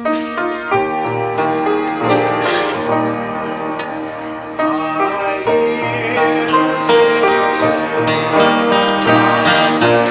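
Instruments playing a hymn tune as the introduction to a congregational hymn.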